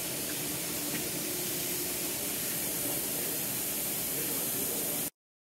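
Steady hiss of compressed air from an air-over-hydraulic aircraft axle jack fed by its air hose; it cuts off suddenly near the end.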